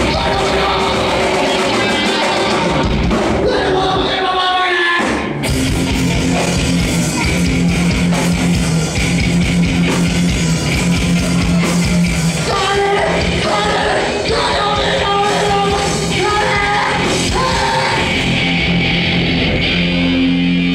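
Loud live rock music with singing, with a brief break in the low end about five seconds in before a new section starts.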